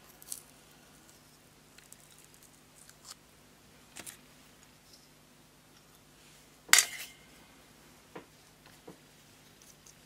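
Scattered light metallic clicks and taps from the parts of a vintage Orlik 153 petrol lighter being handled, with one sharper click about seven seconds in.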